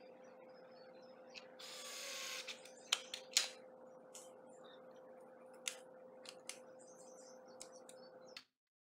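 A cordless drill runs for about a second, about two seconds in, driving the screw that mounts a wireless garage door keypad. Then comes a string of sharp clicks from handling the plastic keypad, loudest about three seconds in, over a faint steady hum. The sound cuts off shortly before the end.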